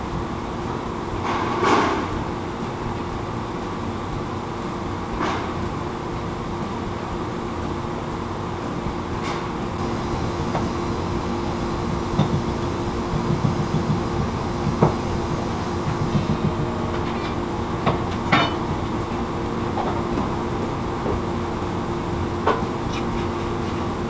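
Steady drone of foundry machinery with a low hum, broken by scattered sharp knocks and clinks.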